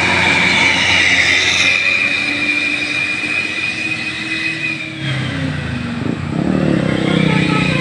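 A bus running by with a long, steady high horn note that fades out about five seconds in; near the end lower notes from its musical basuri horn start to change in steps.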